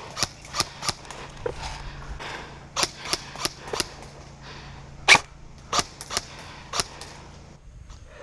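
Airsoft guns firing single shots, about a dozen sharp, irregularly spaced reports, the loudest about five seconds in.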